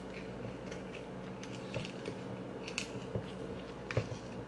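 Wooden pestle knocking and clicking in a mortar as a cucumber som tam is mixed. The light, irregular taps come a second or so apart, over a steady low hum.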